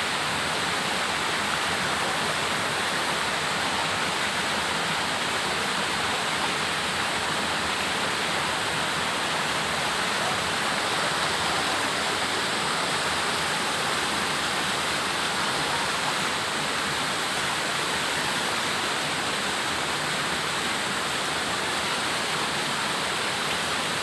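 Waterfall: a steady, unbroken rush of falling water that holds the same level throughout.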